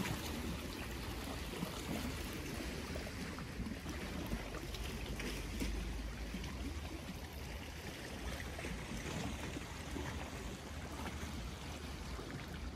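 Small sea waves lapping and trickling against shoreline rocks, with a steady low rumble underneath.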